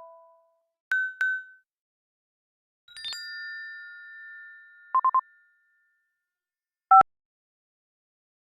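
A run of short built-in iPadOS system sound effects played one after another: a quick double beep, a longer ringing chime that fades out, three rapid beeps, then a short two-tone blip.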